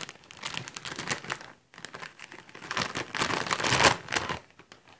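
Plastic Cheetos snack bag crinkling as it is handled and opened, in two spells of rustling with a short lull between.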